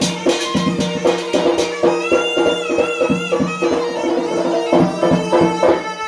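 Yemeni mizmar reed pipe playing a wavering dance melody over quick, steady drum strokes.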